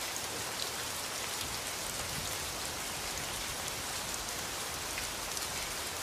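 Steady rain falling, an even patter with a few louder single drops.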